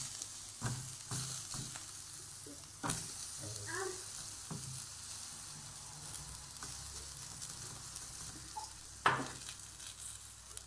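Meat skewers and patties sizzling on an electric grill, a steady hiss, with scattered clicks of the wooden skewers knocking on the wire rack as they are turned; the loudest is a sharp knock about nine seconds in.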